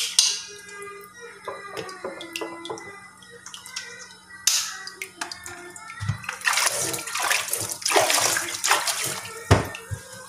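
Hands splashing and swishing water in a plastic basin while washing dishes, loudest in the second half, with a single knock near the end.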